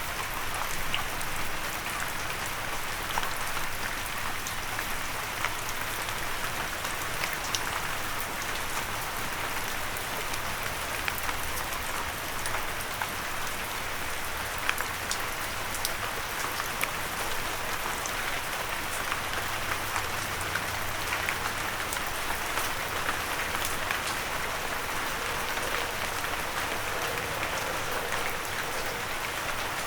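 Steady rain falling and pattering on a surface, with many individual raindrop impacts ticking through the even hiss.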